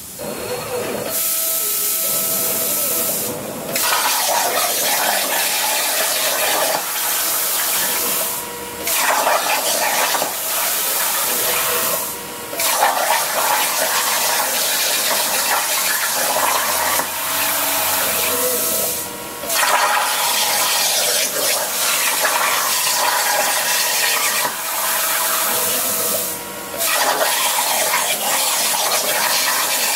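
Longevity ForceCut 42i air plasma cutter cutting 16-gauge steel sheet at 20 amps on a CNC table: a loud, steady hiss of the plasma arc and air jet. It starts about a second in and drops out briefly every few seconds before picking up again.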